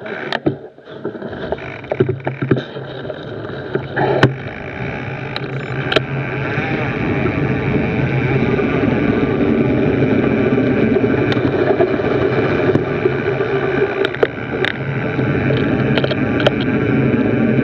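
Mountain bike rolling fast over grass and a dirt trail, heard from a camera on the bike: a steady rush of wind on the microphone and knobbly tyres that grows louder as the bike picks up speed, broken by sharp clicks and knocks as it goes over bumps.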